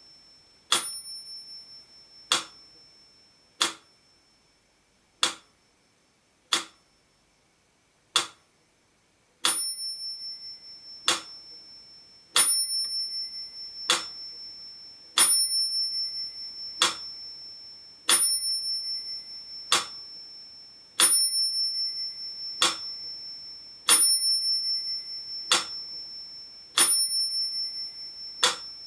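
Black mechanical pendulum metronome ticking at 40 beats per minute, one sharp tick about every second and a half, with its bell set to ring on every second beat. The bell's high ring carries on between the ticks. For several beats in the first third the ticks come without the bell.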